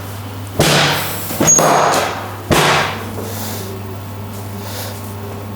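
Three loud thumps about a second apart from a chiropractic table during pelvic adjustments, each fading quickly, with a brief high click at the second.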